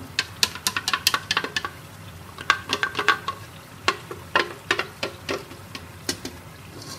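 A metal ladle repeatedly knocking and scraping against a blender jug and the rim of a pressure cooker as a milk-and-onion paste goes into frying mutton qorma and is stirred in, with a steady low sizzle underneath.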